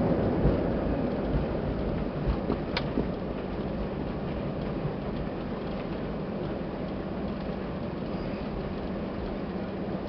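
Cabin noise of an Airbus A320 rolling out on the runway after landing: a steady rush of engine and rolling noise that fades over the first few seconds as the jet slows, then holds steady, with a few rattles and clicks from the cabin.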